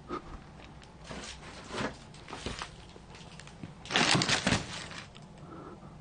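Crunching and rustling of debris and litter underfoot and being disturbed on a rubbish-strewn floor: a few scattered crunches, then a louder crackling burst about four seconds in.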